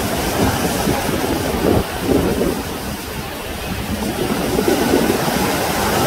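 Ocean surf: waves breaking and washing in as a loud, steady roar, with wind buffeting the microphone.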